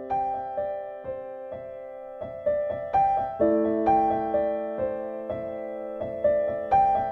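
Background music: a gentle piano melody of single notes struck about twice a second over held chords.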